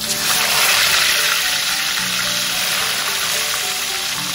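Hot cooking oil in a wok sizzling as a block of tofu is dropped in. The sizzle starts suddenly, is loudest in the first second, then settles to a steady frying hiss. Background music plays underneath.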